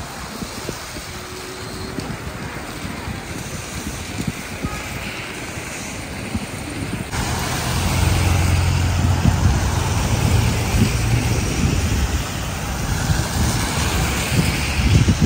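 Car traffic on a rain-wet road: engines and tyres on wet asphalt. About seven seconds in the sound changes and grows louder, with a steady low engine hum from cars close by.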